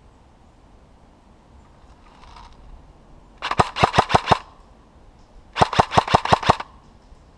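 Airsoft gun firing two quick strings of shots, each about a second long at roughly seven or eight shots a second, a second or so apart, with a faint rustle of movement just before.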